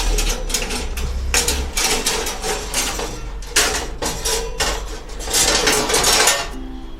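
Metal electric-oven accessories, a tray-lifting handle and baking trays, clattering and scraping irregularly as they are handled.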